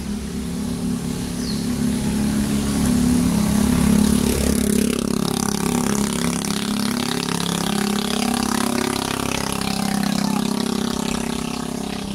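Road traffic passing close by: cars and a motor scooter driving past, the engine sound swelling to a peak about four seconds in and rising again near ten seconds.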